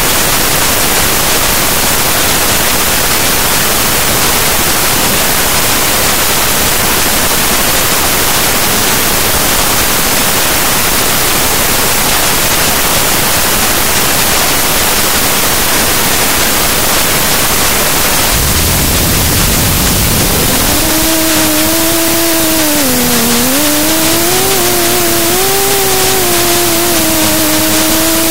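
Loud, even hiss like radio static. About two-thirds of the way through there is a low rumble, and then the whine of the race drone's electric motors sets in, its pitch dipping and rising as the throttle changes.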